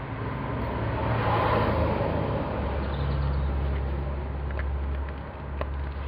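Road traffic going by: a vehicle passes, swelling about a second in, followed by a deep engine rumble that fades near the end. A few faint clicks come near the end.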